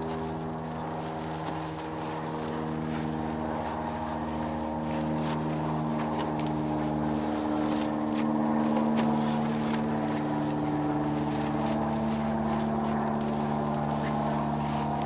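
A motor runs steadily with a low, even, pitched drone that grows a little louder about halfway.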